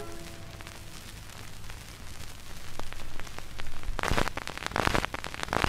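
Surface noise of a 78 rpm shellac record playing on a turntable: a steady hiss and low rumble with scattered crackle, while the last guitar note dies away in the first second. About four seconds in the crackle turns loud and dense.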